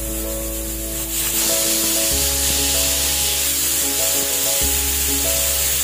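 Pressure cooker whistling: its weight valve lifts and steam hisses out of the vent, starting about a second in, the sign that full pressure has built inside. Background music plays under it.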